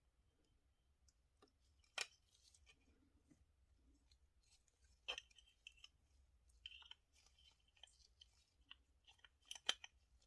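Faint clicks and light scratching of small parts and tools being handled, with sharper clicks about two, five and nine and a half seconds in.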